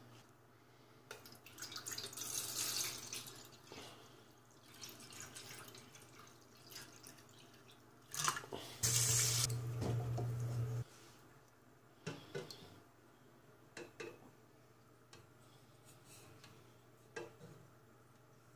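Water running from a kitchen tap into a sink in two spells, the second the louder and with a low hum under it, then scattered light knocks and clicks as eggs and a steel pot are handled.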